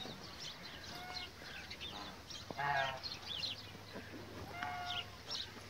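Geese honking from a pond a few times, the loudest call a little under three seconds in and another near five seconds, over scattered faint high chirps.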